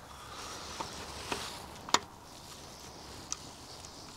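Small metallic clicks and knocks as a replacement ignition distributor is seated and fastened in an old Moskvich engine, with a soft hiss of handling over the first two seconds. There are about four clicks, the loudest about two seconds in.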